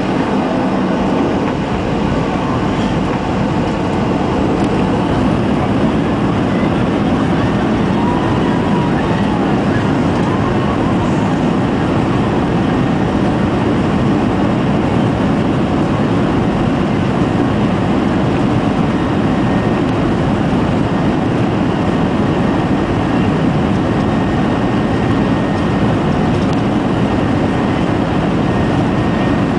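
Steady cabin noise of a Boeing 737-800 with its CFM56 jet engines running at low power while the plane taxis, heard from a seat beside the wing.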